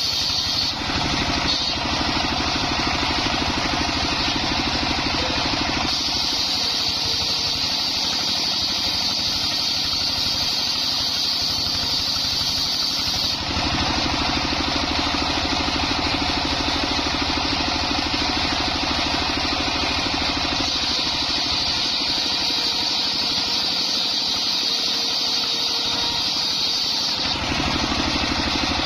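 Engine-driven homemade circular saw running steadily. A high whine comes in twice, for about seven seconds each time, as the blade cuts through coconut-trunk timber.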